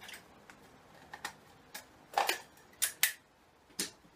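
Workshop handling noise: about seven short, sharp clicks and knocks at irregular intervals as tools and case parts are handled, the loudest about two and three seconds in.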